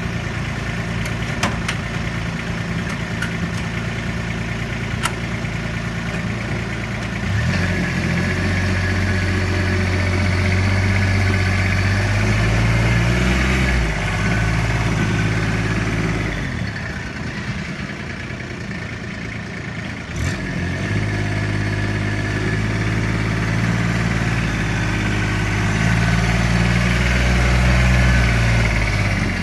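Club Car Carry-All 295's diesel engine idling steadily, then picking up about seven seconds in as the vehicle drives off. It drops back around the middle, then rises again at about twenty seconds and runs steadily while driving.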